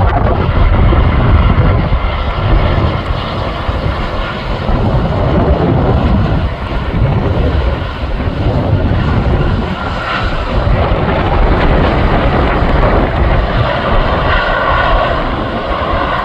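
Airplane jet engines running at high power: a loud, steady rumble, with a whine coming in near the end.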